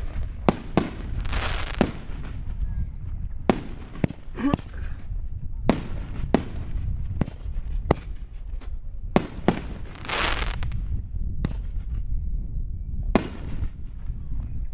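Aerial fireworks bursting: irregular sharp bangs, roughly one a second, with hissing bursts between them, the longest about ten seconds in.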